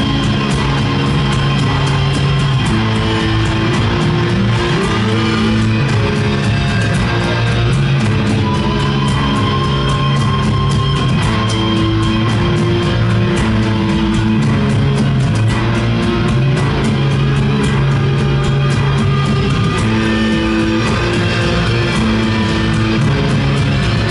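Live post-metal band playing: heavily distorted electric guitars holding long, low sustained chords that change every second or two, over drums and cymbals.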